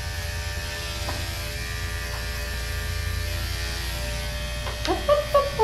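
Andis electric dog clipper with a guard comb buzzing steadily as it is run through the fur on a puppy's head, with a low hum underneath. Near the end a brief pitched, voice-like sound rises over the buzz.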